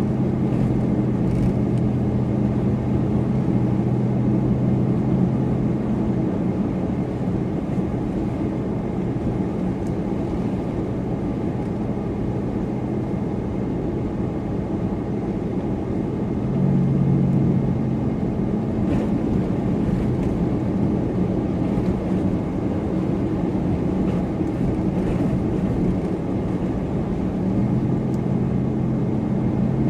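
Supercharged car driving, with steady road and tyre noise under a low engine drone. The drone fades after about six seconds, comes back briefly around the middle and again near the end.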